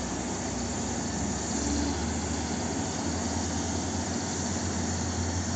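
Diesel engine of a Cat 324D crawler excavator running steadily under hydraulic load as the machine digs and lifts a full bucket of soil, its note rising slightly about a second and a half in.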